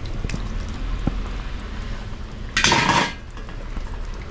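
Steel mesh strainer handled against a clay cooking pot as raw prawns are tipped into the hot curry, with light clinks and then one brief, loud clatter about two and a half seconds in.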